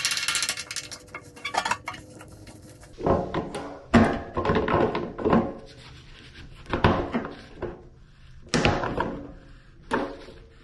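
Metal strainer fittings and a strainer tool worked against a stainless steel sink: a quick rattling scrape in the first couple of seconds, then about seven irregular clanks and knocks that ring in the steel bowl.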